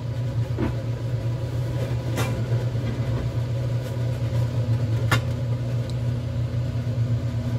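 A steady low machine hum, with two short sharp clicks about two and five seconds in.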